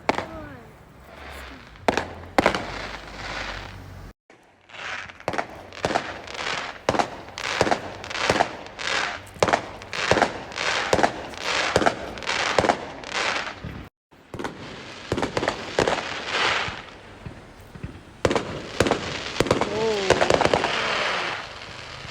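A fireworks display: a rapid volley of shell bursts, about two bangs a second, each trailing off in an echo, with more scattered bangs later.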